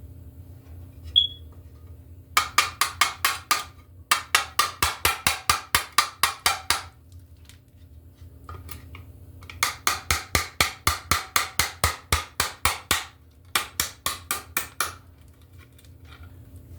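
Hammer rapidly tapping a fastener into a wooden stud, about six light strikes a second in four runs. A single sharp click comes about a second in.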